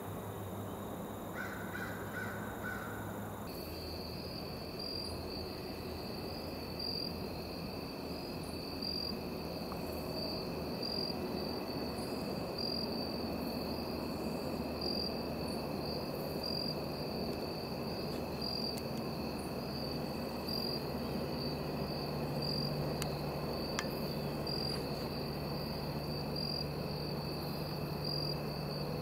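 Insects chirping in the woods: a steady, high, pulsing trill with a second steady lower drone, starting after a cut about three and a half seconds in.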